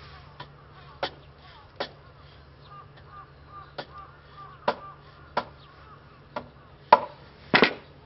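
Red soft-faced mallet knocking on the front axle of a Triumph Hinckley Bonneville to drive it out of the wheel hub: about nine sharp taps at uneven intervals, the hardest near the end. Birds chirp faintly behind.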